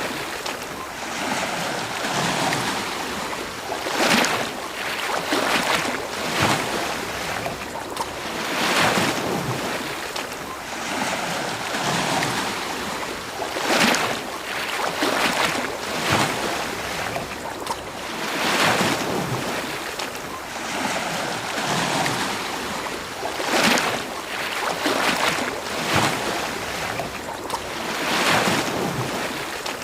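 Ocean waves breaking and washing on a beach, a steady wash of surf with irregular surges every second or two.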